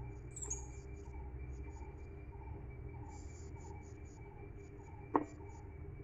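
Insects chirping in repeated short high pulses over a low steady hum, with one sharp knock about five seconds in, the wooden pole striking the aluminium pot, ringing briefly.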